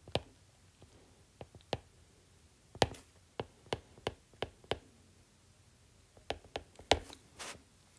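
Stylus clicking and tapping on a tablet during handwriting: a scatter of light, separate clicks, with a pause of about a second past the middle.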